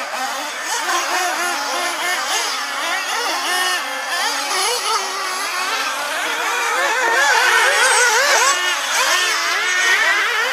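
Several radio-controlled off-road buggies racing together, their small motors revving up and down in overlapping, wavering whines that grow a little louder about seven seconds in.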